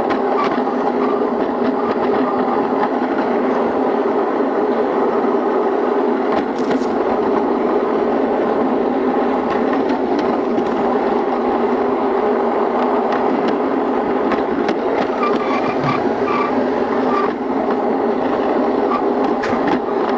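Playmobil toy train's small electric motor and gears running steadily along garden track, heard close up, with a few faint clicks near the end.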